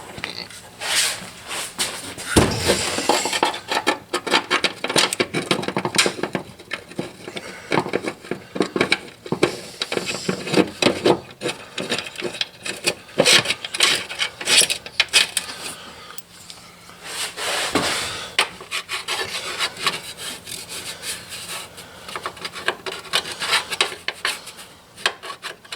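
Bolts being fitted back into a truck's fender well by hand: irregular scraping, rubbing and clicking of metal and liner parts as they are worked into place.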